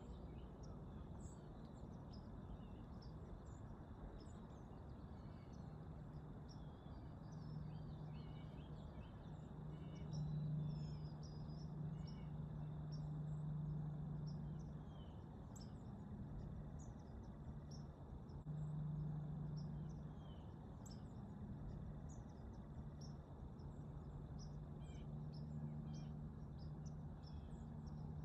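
Quiet field ambience: scattered short bird chirps and a faint steady high tone, over a low hum that swells twice, about a third of the way in and again past halfway.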